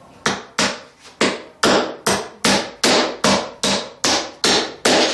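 Hammer driving a nail: about a dozen steady, evenly spaced strikes, roughly three a second.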